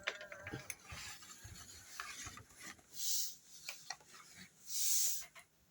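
Hands handling a plastic talking Chucky popcorn bucket, feeling for its switch at the back: light rubbing and scraping with a few small clicks, and two short hissing rustles about three and five seconds in.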